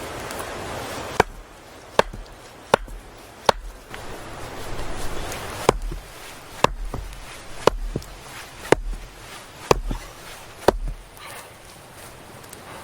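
Chopping: about ten sharp blows, roughly one a second, with a short pause and some rustling near the middle.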